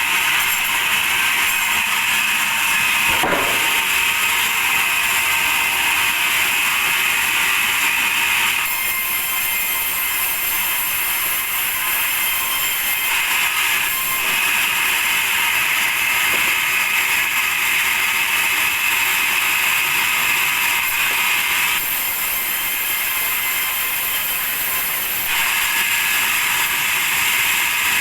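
Sawmill saw running through meranti wood, a steady hard mechanical noise whose tone shifts several times as the cut goes on, with a single knock about three seconds in.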